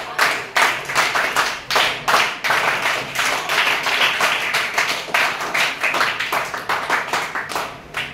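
A group of children clapping their hands together in a steady rhythm, about three claps a second, stopping shortly before the end.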